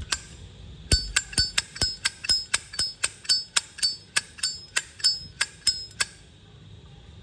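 A 1986 Zippo lighter's hinged metal lid being flipped open and snapped shut over and over, a fast run of sharp metallic clacks, about four or five a second with a short high ring, for about five seconds, then stopping.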